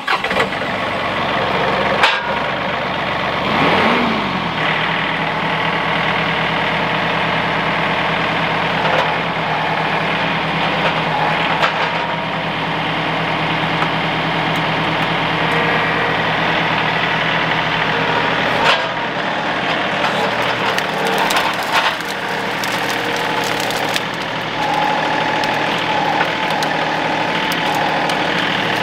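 Compact tractor's diesel engine running steadily, with a few sharp knocks and clanks along the way.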